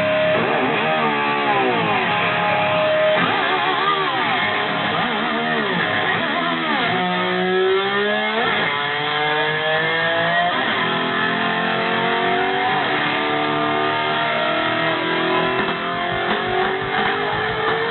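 Live rock band with an electric slide guitar playing repeated swooping glides up and down in pitch that imitate a motorcycle revving.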